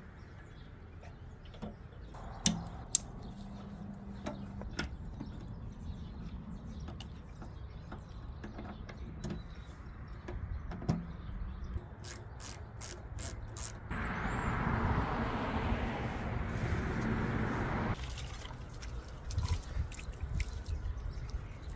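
Aerosol spray paint can: a run of quick rattling clicks, then a steady hiss of spraying for about four seconds. Scattered knocks come before it, over a low background rumble.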